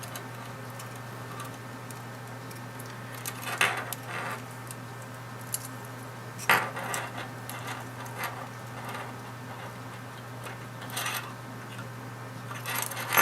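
Knife blade scraping and clicking against the plastic case of a car key fob as it is prised open, in a few short bursts with gaps between, over a steady low hum.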